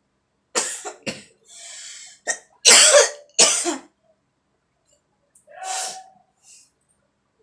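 A woman coughing: a run of about five harsh coughs with a drawn breath among them, then one more cough about six seconds in. She is trying to provoke a sneeze and is coughing instead.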